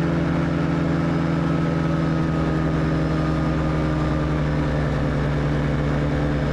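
Light aircraft engine and propeller running with a steady drone in flight, the pitch easing down slightly.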